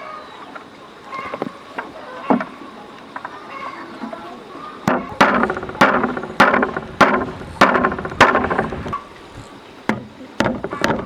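Hammer striking wood: a few scattered knocks, then, about halfway through, a steady run of about eight ringing blows, roughly two a second.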